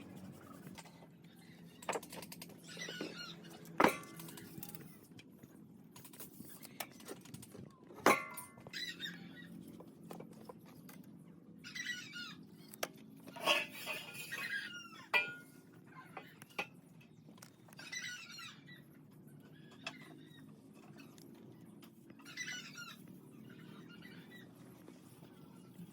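Short high squeaky chirps, each about half a second to a second long, at irregular intervals, with a few sharp knocks, the loudest about 4 and 8 seconds in.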